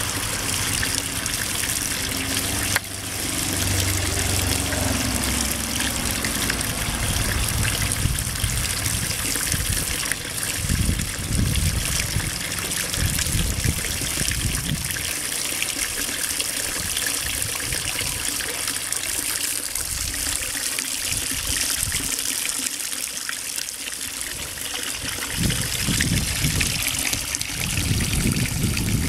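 Thin water jets from a concrete frog fountain's spouts trickling and splashing steadily into the water of its concrete basin, with a low rumble at a few points.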